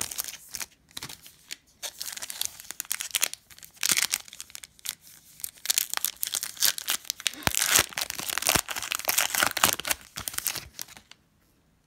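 Foil trading-card pack wrapper being torn open and crinkled by hand, in irregular bursts of crackling with sharp clicks, heaviest in the second half, then falling quiet near the end.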